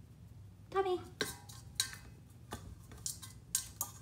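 Kitten's claws and paws knocking and scraping on the stainless steel bowl it sits in: a handful of sharp metallic clinks, one leaving the bowl ringing for about a second.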